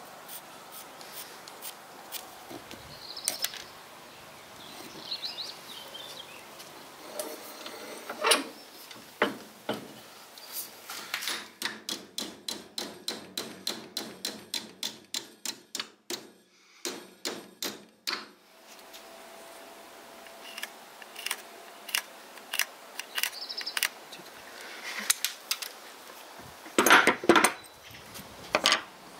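A hand saw cutting through a small wooden block clamped in a vise, in a run of quick even strokes, about three a second, for several seconds in the middle. Before and after come light taps and clicks of the wood and tools being handled, and near the end a few louder knocks.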